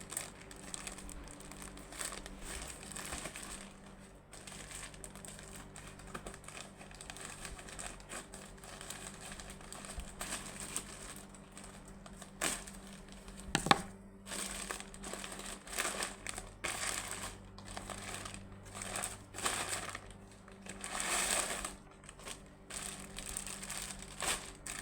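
Plastic packaging crinkling and rustling in irregular bursts as packaged clothes are handled and pulled out, with one sharp snap about halfway through.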